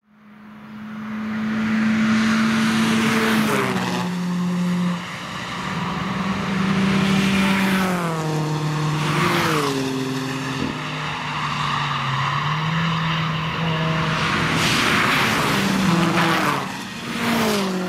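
Several sports cars, among them a BMW M3 and a Subaru Impreza, passing one after another at speed. Their engines run at high revs, and the engine note drops in steps as they shift gears. The sound fades in over the first second or two.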